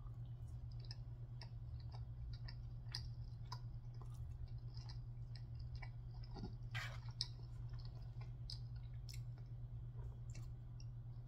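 Faint, close-up chewing of a mouthful of pasta: many small wet mouth clicks and smacks, with one louder noisy burst about seven seconds in, over a steady low hum.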